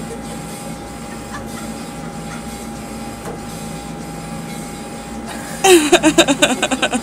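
Steady background hum, then near the end a person bursts into laughter: quick pitched pulses, about eight a second, much louder than the hum.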